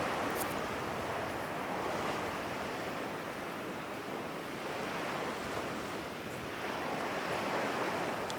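Ocean waves washing on a shore as a steady background sound effect, rising and falling slowly in level.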